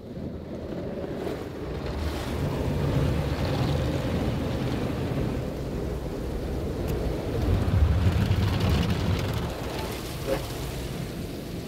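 High-pressure water jets of a PDQ Tandem ProTouch touchless car wash spraying the car, heard from inside the cabin as a steady rushing with a low rumble. It swells at the start and is loudest about two-thirds of the way through, as the spray passes over.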